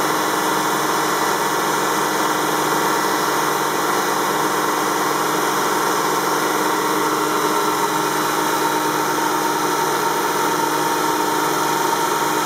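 Grimonprez semi-automatic bridge saw running steadily, its water-cooled blade cutting through a stone block under a water spray. A constant machine hum over an even hiss, unchanging throughout.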